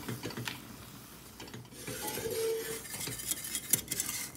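Sauce being stirred in a stainless steel saucepan. From about two seconds in, a metal wire whisk scrapes and clicks rapidly against the pan.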